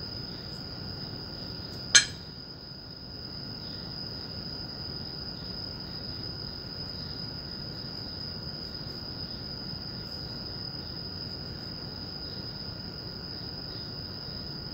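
A steady high-pitched whine over a low hiss, with one sharp click about two seconds in.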